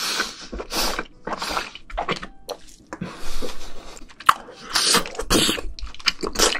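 Close-miked chewing of a mouthful of tender hanwoo (Korean beef) sirloin steak: a quick run of mouth smacks, several a second, with one sharp click about four seconds in.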